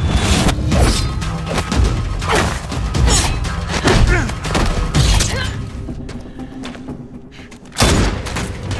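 Film soundtrack of a fight: music under a run of blows, thuds and crashes, dropping quieter for a couple of seconds before a sudden loud impact near the end.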